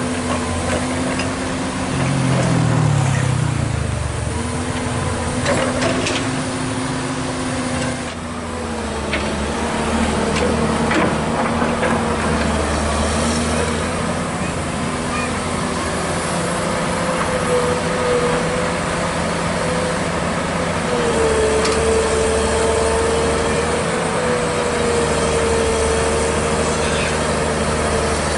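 Komatsu PC200 long-reach excavator's diesel engine running continuously as the machine works, its pitch wavering and dipping slightly as the arm and bucket move.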